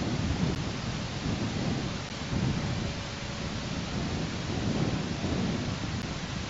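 Steady outdoor noise on a nest camera's microphone: a deep, uneven rumble that swells and fades every second or so, over a faint even hiss.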